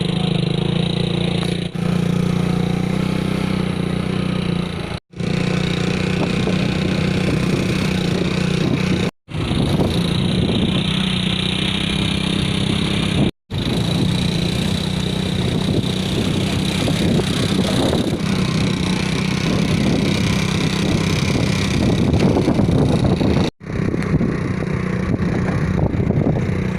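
Motor vehicle engine running steadily on the move, with a constant low hum and road noise. The sound breaks off abruptly for an instant four times.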